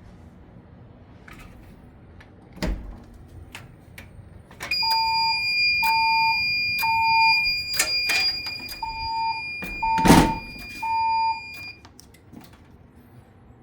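Siemens Desigo Modular XLS-V fire alarm sounding its evacuation signal between voice messages, starting about five seconds in and lasting about seven seconds. It is a temporal-three pattern of three short beeps, a pause and three more, over a steady high-pitched tone. Two sharp thumps fall near the start and near the end, with scattered clicks around them.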